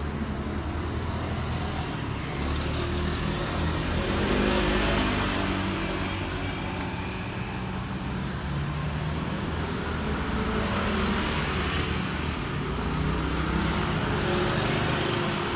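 Street traffic: motor vehicles passing close by one after another, engine and tyre noise swelling and fading three times over a steady engine hum.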